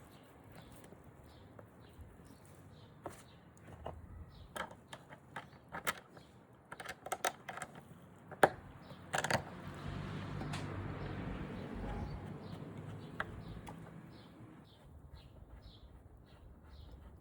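A run of sharp knocks and clicks, then a few seconds of scraping noise. In the last few seconds a small bird chirps over and over, about two or three short chirps a second.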